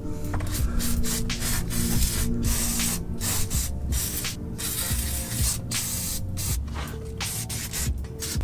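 Aerosol spray can hissing in repeated short bursts, spraying the rusted exhaust-to-catalytic-converter bolts to free them. Background music plays underneath.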